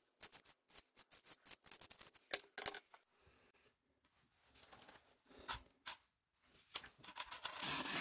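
Faint, quick scratching strokes of a felt-tip marker tracing a circle onto air-filter material, stopping about three seconds in. Later, a few light knocks and then a burst of rustling as the round filter disc is handled and laid on a plastic grille.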